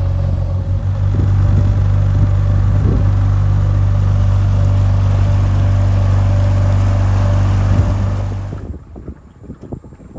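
Boat motor running steadily at cruising speed, a constant low hum. About eight and a half seconds in it falls away, leaving wind noise and water splashing.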